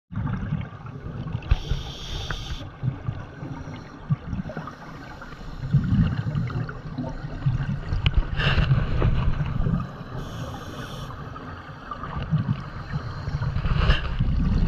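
Scuba diver breathing through a regulator underwater: two short hissing inhalations about eight seconds apart, each followed by a long, low, gurgling rumble of exhaled bubbles.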